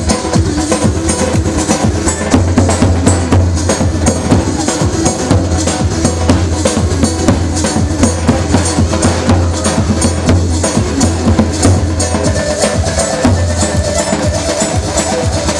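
Kurdish wedding dance music with a fast, busy percussion beat over a steady heavy bass.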